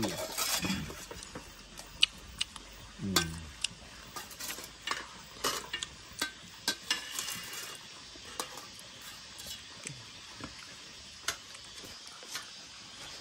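Metal spoon scraping and clinking against a stainless steel pot as food is dished out, with scattered sharp clinks of dishes.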